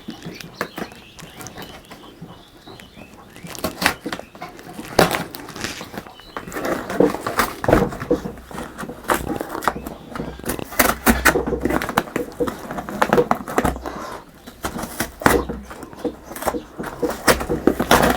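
Cardboard packaging of a PC cabinet being opened and handled: irregular rustling, tearing and knocks, busiest in the middle.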